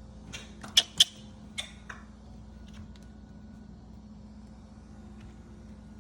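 A quick run of sharp clicks and knocks in the first two seconds, the two loudest close together about a second in, then a couple of faint ticks, over a steady low hum.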